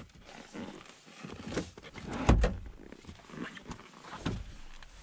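Knocks and rustling of a person climbing into a car's driver's seat, with a heavy thump a little over two seconds in and lighter knocks around it.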